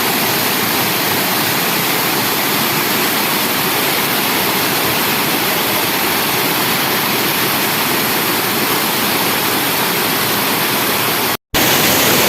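Waterfall rushing steadily, a loud, even roar of falling and flowing water, broken by a split-second gap near the end.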